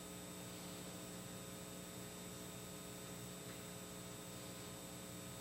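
Steady, faint electrical mains hum with several even tones stacked above it, over a light hiss.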